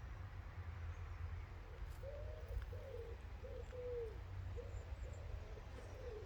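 A pigeon cooing: a run of soft, low hooting notes in short phrases, beginning about two seconds in, over a steady low rumble.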